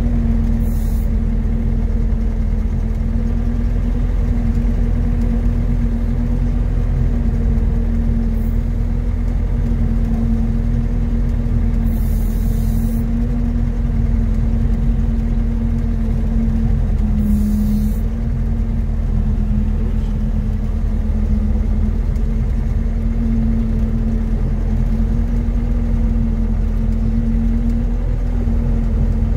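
Heavy vehicle engine running steadily, heard from inside the cab: a constant low drone and rumble with a steady hum, broken by a few short hisses about 12 and 17 seconds in.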